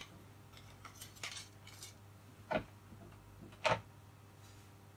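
A few light metallic clinks and taps of small tools or parts being handled on a workbench, with two sharper clicks about halfway and about three-quarters through, over a faint steady hum.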